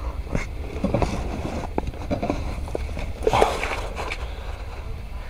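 Handling noise from rummaging inside a car: scattered light clicks and knocks and a louder rustle about three and a half seconds in, over a steady low rumble.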